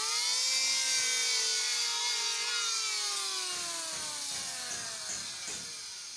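Electric hand planer starting with a sudden whine that climbs in pitch, then sinks slowly and fades over several seconds as its cutter drum loses speed.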